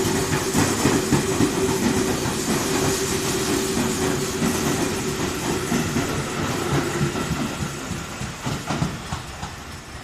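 Tobu 20050 series electric train accelerating out of the station past the platform: cars rolling by with wheels clattering over rail joints and a steady hum, fading in the last few seconds as the end of the train draws away.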